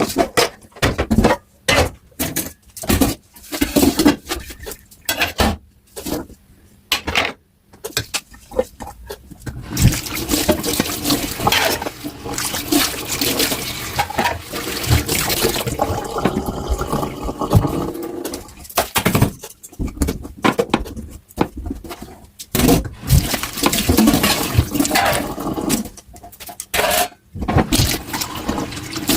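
Dishes being washed by hand at a kitchen sink. At first there are short, separate splashes and clatters of water and dishes, then the tap runs steadily for several seconds from about ten seconds in, and after that the splashing goes back to short bursts.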